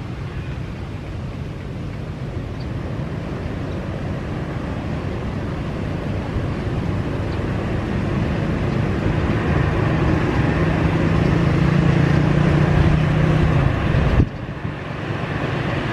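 Jet engines of a twin-engine airliner rolling toward the listener after landing, a steady rumble and hum that grows louder as it comes closer, then drops off sharply about fourteen seconds in to a fainter hum.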